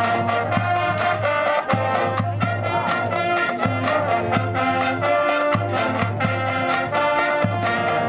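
Marching band playing a brass-led passage: trumpets and trombones sustaining chords over a low held bass note, with frequent sharp percussion hits.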